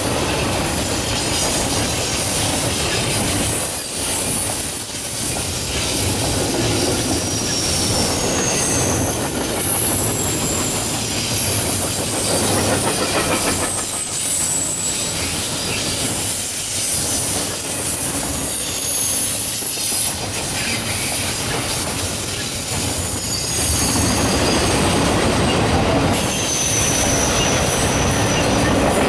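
Double-stack intermodal freight train rolling past, its container well cars making a steady loud rolling noise of steel wheels on rail, with thin high-pitched wheel squeal wavering in and out above it.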